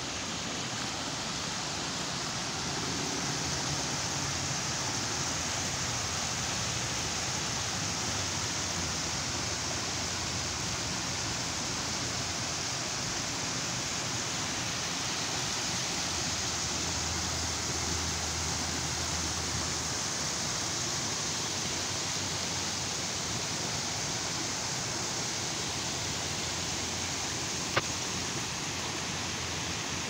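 Water spilling steadily through the gaps between concrete blocks and over a low concrete weir, a constant rushing splash. A single sharp click sounds near the end.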